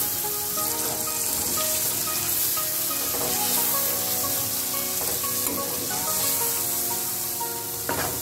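Beef pieces and spiced yogurt sizzling in hot oil in a pot while a metal spoon stirs them, with occasional scrapes against the pot.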